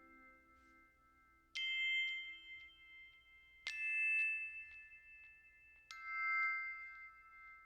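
Three struck chime notes about two seconds apart, each bright and ringing out slowly, in a calm background-music track.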